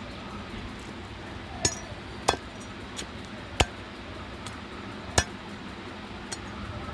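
Heavy cleaver chopping through goat-head bone on a wooden chopping block: sharp, irregularly spaced strikes, about four loud ones and a couple of fainter ones.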